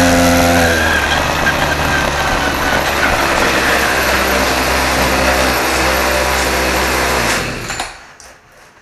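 Small gasoline engine of a stand-up motor scooter running smoothly as it is ridden, its carburettor freshly cleaned with the jets bored out. The engine stops about seven and a half seconds in and the sound dies away within half a second.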